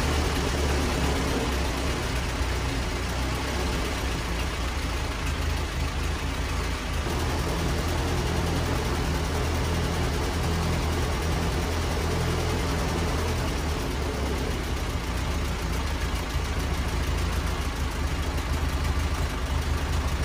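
1947 Ford 2N tractor's four-cylinder flathead engine idling steadily, running on newly installed ignition points and condenser.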